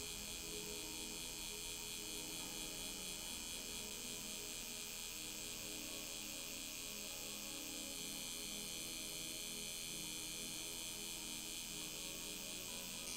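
Permanent-makeup pen tattoo machine running steadily with an electric buzz and high whine as its needle works pigment into the lip.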